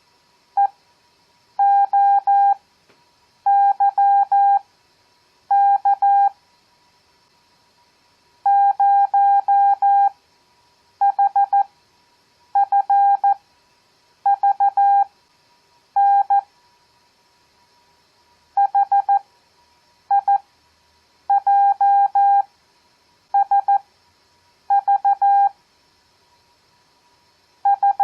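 Morse code (CW) practice tone: a single steady beep keyed into dots and dashes, sending random letters, numbers and punctuation. Each character is keyed at 14 words per minute, with long Farnsworth gaps between characters that bring the overall pace down to 7 words per minute.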